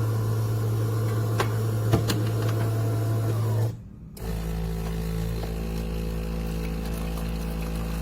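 De'Longhi Rivelia automatic espresso machine running: a steady motor hum stops a little before halfway, and after a brief pause a lower, different hum starts and keeps going, the machine moving into its next stage of making a drink.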